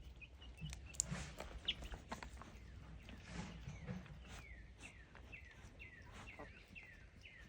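Baby chicks peeping: a steady run of short peeps, each falling in pitch, about two or three a second in the second half, with a few light knocks and rustles earlier.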